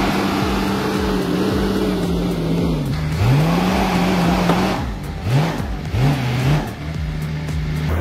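Case 1150E crawler dozer's diesel engine working under load as the blade pushes out a pine stump. Its pitch sags and climbs back several times as it lugs and recovers.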